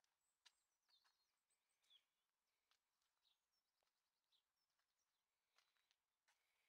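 Near silence: faint outdoor ambience with a few faint, short bird chirps and soft clicks.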